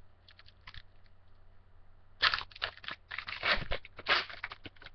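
Foil baseball card pack wrapper being torn open and crinkled by hand: a few faint clicks, then a run of short, crackly rustles from about two seconds in.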